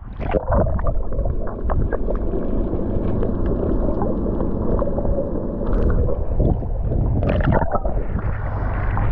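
Water sound picked up by an action camera held under the surface: a muffled, steady rumble of moving water with many small clicks and crackles. About seven seconds in there is a splash as the camera breaks the surface, and open-air water noise follows.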